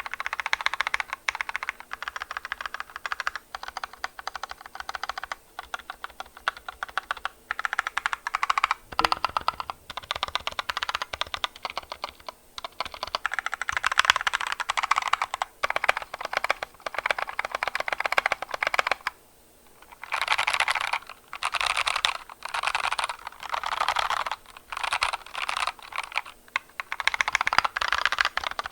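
Fast typing on a custom 60% mechanical keyboard (GK61 kit, ABS plastic case) with Kailh BOX Red linear switches. It gives quick runs of keystroke clacks in bursts, with one pause of about a second partway through. The overall sound is lower-pitched.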